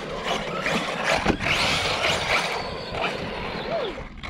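Arrma Outcast 6S RC monster truck's brushless electric motor whining up and down in pitch as it is throttled over sand. There is a sharp thump about a second in.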